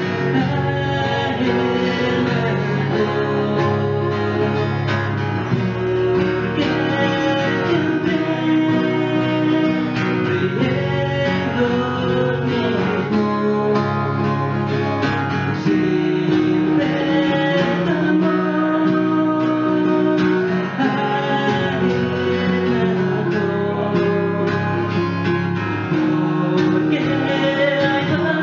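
Two acoustic guitars strummed and picked together, with a male voice singing over them.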